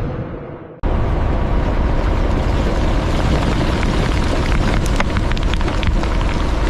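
Loud, steady industrial roar of cement plant machinery, full of small crackles and clicks, cutting in abruptly about a second in after a fading whoosh.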